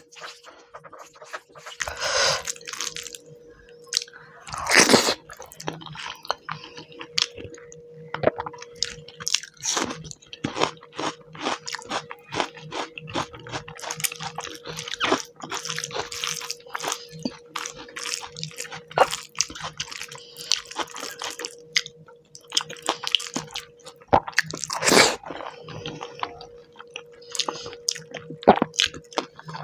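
Close-miked eating: wet chewing, lip smacks and sharp mouth clicks of rice and fish curry eaten by hand, with a few louder smacks about two, five and twenty-five seconds in. A faint steady hum runs underneath.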